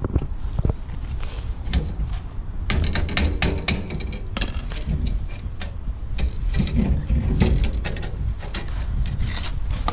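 Irregular clatter of clicks and knocks as hands work a catch under a caravan's chassis, thickest about three to five seconds in, over a low rumble.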